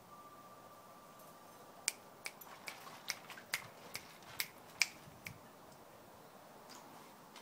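Small wooden cat figures clicking and knocking against each other and the glazed plant pot as a toddler's hands move them. About ten sharp, irregular clicks come over three and a half seconds, starting about two seconds in.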